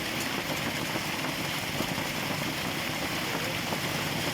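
Rain falling steadily with rainwater running, an even, unbroken hiss.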